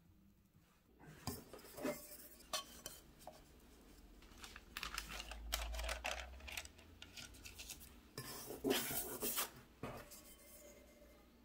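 Parchment paper rustling as it is pressed into a metal cake pan, with light knocks and scrapes of the pan being handled on a counter; the loudest handling comes about nine seconds in.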